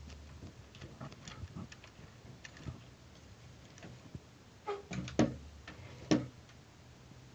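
Plastic toy RC quad being handled: scattered light clicks and taps, with two sharp, louder knocks about five and six seconds in.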